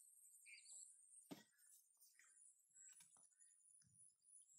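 Near silence, with a few faint clicks and ticks from hands handling a fishing hook and line, and a brief faint chirp about half a second in.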